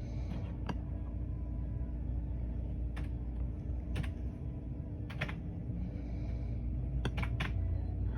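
A few separate computer keyboard key presses, scattered about a second apart, over a steady low hum.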